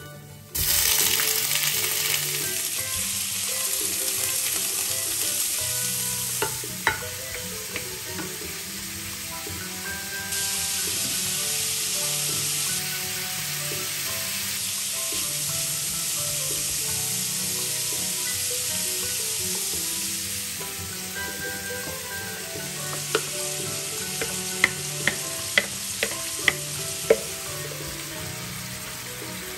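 Shrimp hitting hot olive oil in a stainless steel frying pan, starting a loud sizzle all at once about half a second in, then frying steadily. Near the end come several sharp clicks of a utensil against the pan.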